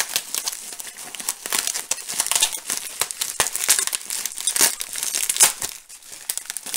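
Bubble wrap crinkling and crackling irregularly in the hands while tape is peeled off it to unwrap a parcel.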